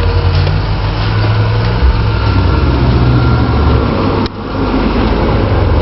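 Bass-heavy music from two 12-inch Kenwood subwoofers in a closed car, heard from outside, the deep bass notes shifting as the track plays. The sound cuts out suddenly about four seconds in and again at the end.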